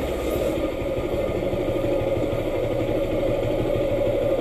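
Bajaj Pulsar NS200's single-cylinder engine idling steadily.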